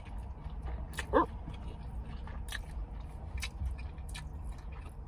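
Close-miked chewing and mouth sounds of someone eating, with scattered small clicks and a brief squeaky sound about a second in, over a steady low rumble.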